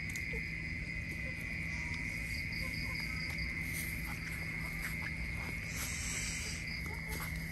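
Steady high-pitched insect drone from crickets or cicadas, with a steady low hum beneath, scattered faint clicks, and a short high hiss about six seconds in.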